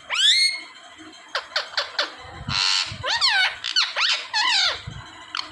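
A parrot calling: a run of short, high whistled squeaks that sweep up and down in pitch, with a harsher screech about two and a half seconds in.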